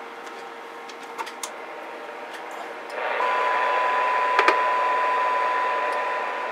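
CB radio receiver audio from its speaker: faint hiss that jumps to louder static about three seconds in, followed almost at once by a steady test tone of about 1 kHz from the service monitor's signal generator. Sharp knob clicks come a few times, two of them near the middle.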